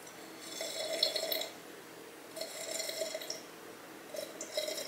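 Close-miked gulps of a drink swallowed from a glass: three swallows, each about a second long, spaced about two seconds apart, with the last running on past the end.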